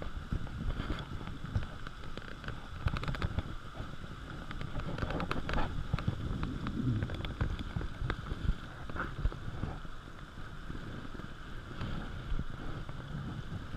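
Wind buffeting the camera microphone in an uneven low rumble, under a steady hiss with scattered small clicks, crackles and light water splashes from the shallows.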